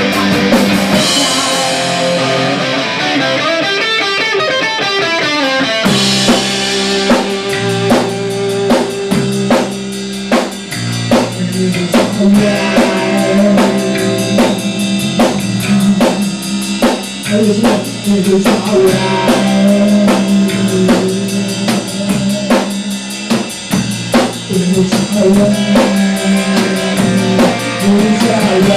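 Rock music played by a band on drum kit and guitar; about six seconds in, a steady drum beat and a stepping bass line come in.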